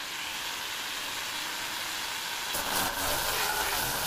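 Electric angle grinder fitted with a polishing pad, running steadily as it buffs the edge of a granite countertop: a constant motor whine under a dense grinding hiss, a little louder from about two and a half seconds in.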